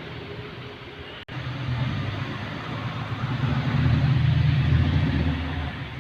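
Maruti Suzuki 800's three-cylinder carburettor engine running, growing louder after a brief dropout about a second in, then easing slightly near the end.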